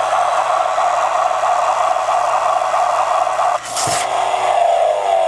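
Electronic propeller-engine sound effect from the Dusty Crophopper Wing Control toy plane's speaker: a steady buzzing drone, broken by a click a little under four seconds in, after which the pitch falls away.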